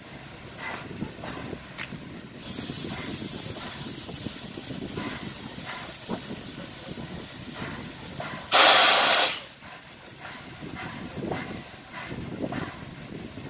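Soviet class L steam locomotive L-5289 standing and hissing steam over a low rumble with scattered knocks. About two and a half seconds in, a high hiss starts and runs for several seconds; then a sudden, very loud blast of released steam lasts under a second.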